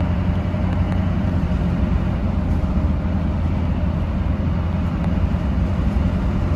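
Pickup truck carrying a camper, driving along a paved road, heard from inside the cab: a steady low rumble of engine and tyre noise.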